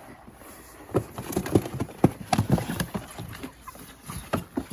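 From about a second in, a rapid, irregular run of knocks, scuffles and flutters, with a few short chicken calls mixed in, as young meat chickens are caught and moved.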